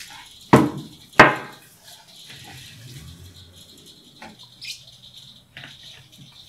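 Coffee poured from a thermos carafe into a glass at a table, with two sharp, briefly ringing knocks of tableware on the table about half a second and a second in, then a few light clicks.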